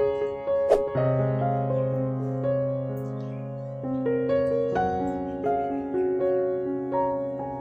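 Background piano music playing slow, sustained notes and chords. A single sharp click comes about a second in.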